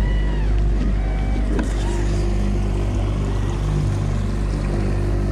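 Honda four-stroke outboard motor running steadily at trolling speed, a constant low hum, with water rushing past the hull.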